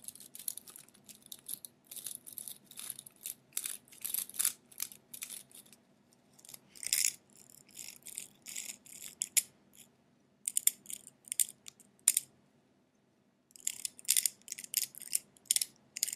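Scratching for an ASMR scalp scratch: short scratching strokes, several a second, that pause for about a second roughly twelve seconds in.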